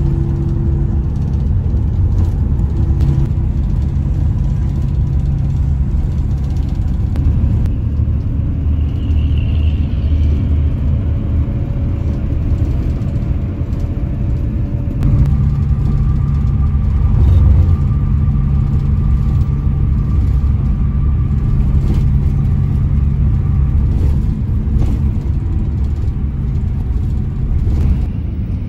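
Coach bus on the move: a steady low rumble of engine and road noise with a constant engine hum, its tone shifting about halfway through.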